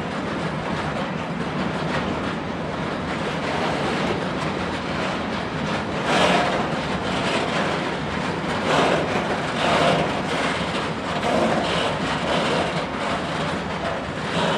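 Freight train of tank wagons rolling past, a steady rattling rumble of wagon wheels on the rails. Several louder surges of clatter come in its second half.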